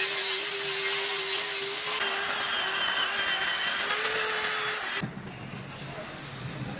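An electric power tool runs with a steady whine over a hiss, its pitch wavering slightly, and cuts off about five seconds in; a quieter machine hum follows.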